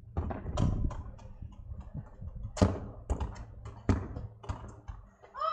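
A football being kicked and bounced on tarmac: a series of sharp thuds at irregular intervals, the loudest about two and a half seconds in.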